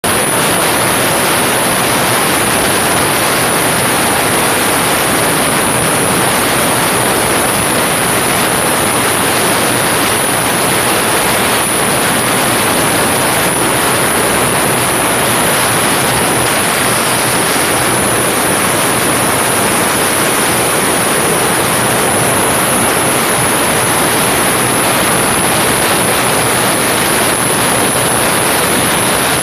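Hino EP100 diesel engine of a big Thai long-tail racing boat running steadily under way, loud and unbroken, mixed with rushing water and wind noise and a constant high-pitched whine.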